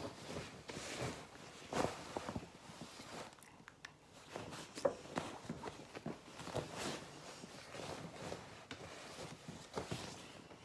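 Bedding being handled: a comforter and sheets rustling and flapping as they are pulled and spread, with scattered soft knocks and thumps.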